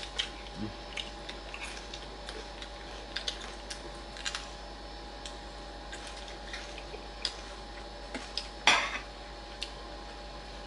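Spoons and forks clinking and scraping on plates and bowls as people eat, in scattered light clicks with one louder clink near the end, over a faint steady hum.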